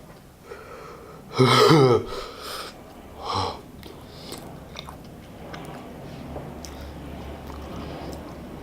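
A man chewing a mouthful of chicken burger, with wet mouth sounds. About a second and a half in he lets out a loud, short, wheezy vocal sound, and a shorter one follows about two seconds later.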